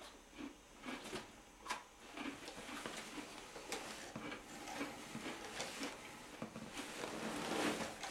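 Faint rustles and scattered small clicks of people shifting where they sit, over a low hiss that slowly grows louder toward the end.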